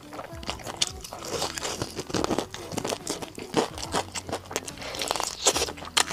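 Biting and chewing a fried chicken drumstick's crispy coating, close to a clip-on microphone: a rapid, uneven run of crisp crunches and crackles.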